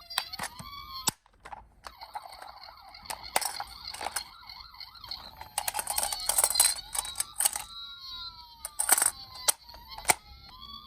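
Toy emergency-vehicle siren wailing in slow rising and falling glides, with a faster warble a few seconds in. Repeated sharp clicks and knocks sound over it, and there is a short gap about a second in.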